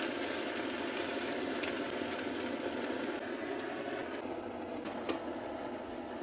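Chopped cabbage and potato sizzling in an aluminium kadai while being stirred with a metal spatula. About three seconds in the high hiss drops as the pan is covered with its lid, and two sharp metal clinks come near the end.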